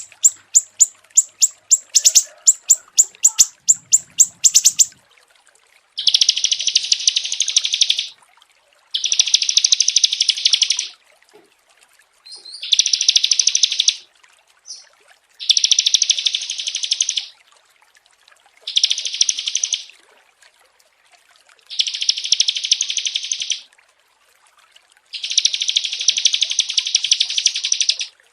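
Small songbird singing. First comes a rapid series of sharp, high repeated notes, about four a second, lasting roughly five seconds. Then come seven fast buzzing trills, each about two seconds long, separated by short pauses.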